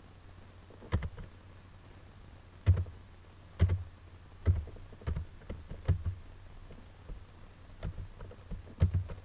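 Computer keyboard keys pressed one at a time as a password is typed: about ten separate clicks, unevenly spaced, over a low steady hum.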